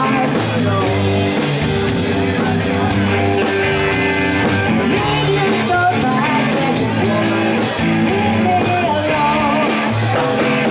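Live rock band playing: electric and acoustic guitars with bass over a steady beat.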